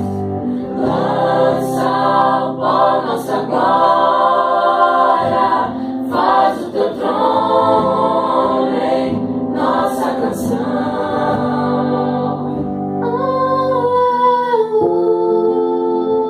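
Mixed church choir singing a slow worship song in several voice parts, with long held chords over a sustained low accompaniment. About fourteen seconds in the low part drops away, leaving softer held notes.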